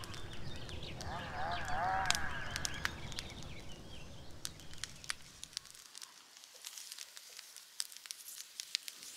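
Campfire crackling with frequent sharp pops, over a low rumble that fades out about six seconds in. A quick run of animal calls sounds about one to three seconds in.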